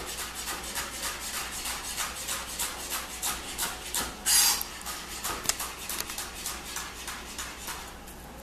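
Chef's knife slicing rolled bok choy leaves into thin strips on a cutting board: a steady run of chopping strokes, about three a second, with one louder, longer stroke about four seconds in.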